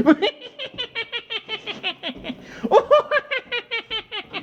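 A person laughing in a long run of quick, even "ha" pulses, about five a second, swelling louder about three seconds in.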